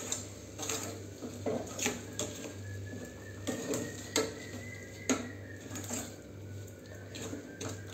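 Spatula scraping and knocking against a metal kadai while stirring grated carrots and sugar for carrot halwa. The strokes are irregular, about one a second, over a low steady hum.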